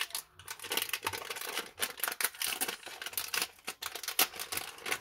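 Thin paper bag of wax melts crinkling and rustling as hands open it: a dense run of crisp crackles, the sharpest about four seconds in.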